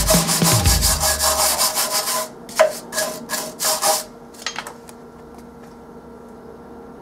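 Wire brush scrubbing a fresh stick weld on a cast iron foot, cleaning off slag: fast back-and-forth scraping strokes that thin out to a few separate strokes about two and a half seconds in and stop about four seconds in.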